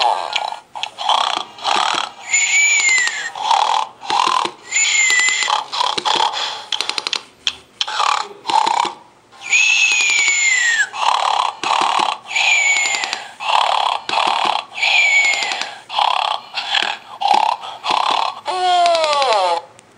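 Plush music bear with a pacifier playing its recorded snoring: a repeating cycle of a snore followed by a whistling breath out, roughly every two to three seconds. Near the end comes a drawn-out falling sound.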